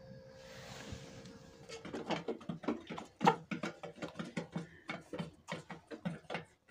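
Hens pecking feed from a metal trough: rapid, irregular sharp taps that start a little under two seconds in, after a faint outdoor wind hiss.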